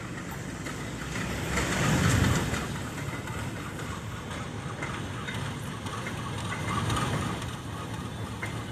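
Diesel locomotive hauling a freight train along the yard tracks, its engine running and its wheels rolling on the rails. The sound swells louder about two seconds in and again around seven seconds.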